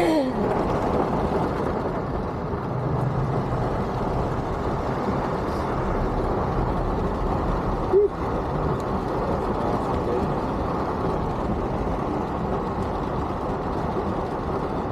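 Steady vehicle and traffic noise heard from inside a car stuck in slow traffic, with a brief sharp sound about eight seconds in.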